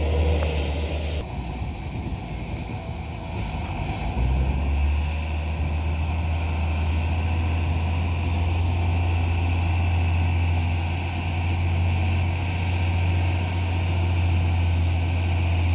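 Heavy truck's diesel engine running with a steady low drone.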